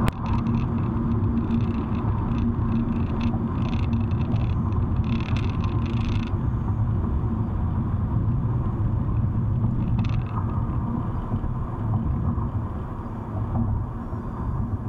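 Car road noise heard from inside the cabin: a steady low rumble of tyres and engine at highway speed down an off-ramp, with a few short crackly ticks in the first several seconds. The rumble eases slightly near the end.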